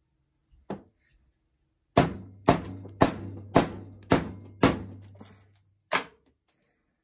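Hammer blows on a metal punch, knocking a piece out of a steel shelf support clamped in a vise: a single blow, then a steady run of about two blows a second, and one last blow near the end.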